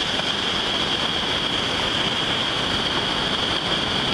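Steady rush of whitewater rapids, with no let-up in level.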